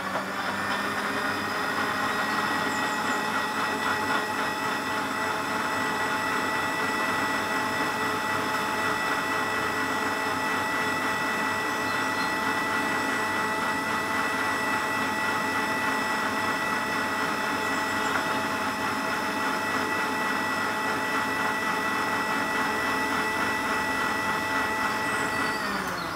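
Electric mixer-grinder motor running steadily at full speed with a high whine, blending spinach, tomato and water into juice in its jar. Near the end it is switched off and the whine falls in pitch as the motor winds down.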